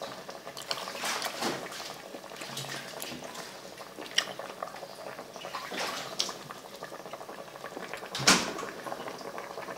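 Pot of soup bubbling at a simmer, with small irregular pops and ticks from the bursting bubbles. A sharp knock about eight seconds in.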